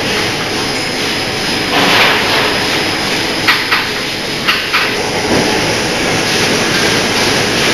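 Automatic multi-channel packing line running: a steady mechanical din with short sharp clacks at irregular intervals.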